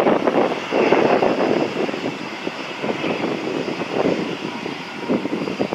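Jet engines of an Airbus A320-232, its IAE V2500 turbofans, running at low power as the airliner taxis: a steady rushing noise that swells and eases, with a faint high whine over it.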